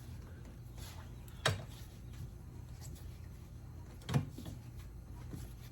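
Two short knocks about two and a half seconds apart from work on a motorcycle wheel while the tire bead is being forced off the rim, over a steady low hum.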